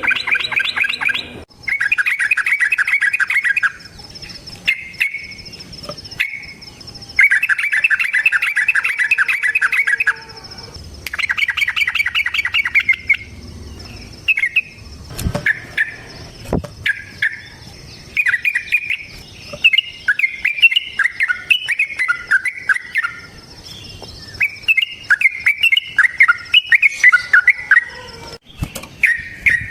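Yellow-vented bulbul (trucukan) singing: several long, fast trilled bursts of a couple of seconds each in the first half (the 'ropel' trill), then shorter, varied bubbling phrases. A faint steady high tone runs beneath the song.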